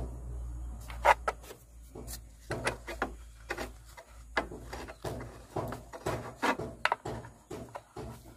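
Irregular knocks, clicks and rubbing of objects being handled, with a low steady hum that fades out in the first second and a half.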